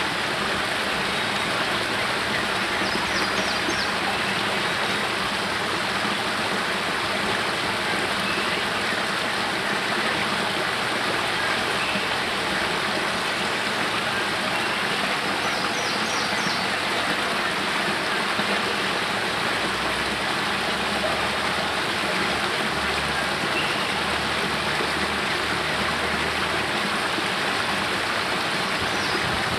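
Spring water spilling from a cave mouth and cascading down rocks into a pool: a small waterfall's steady splashing.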